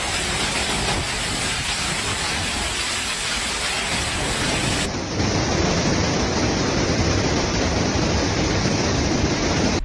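Heavy rain pouring down in a storm, a steady dense hiss. About halfway through it gives way to the steady rush of a muddy flash-flood torrent.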